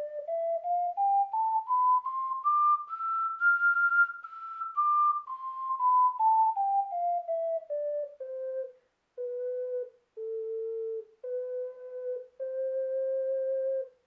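STL Nightingale tenor ocarina in C, a 12-hole clay ocarina, playing its scale: clear, whistle-like single notes stepping evenly up to its top note, F6, and back down. It ends with a few longer notes at the bottom of its range, down to A4.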